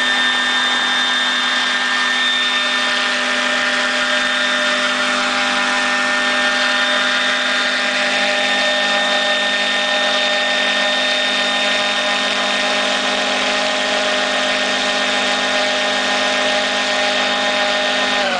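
Electric Vario Ecureuil AS350 scale model helicopter running at a steady head speed. A high, even whine from the electric motor and gear train sits over the rotor noise, and it starts to wind down in pitch right at the end.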